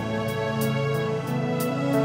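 Soft background music: sustained, gentle notes over a light, steady ticking beat.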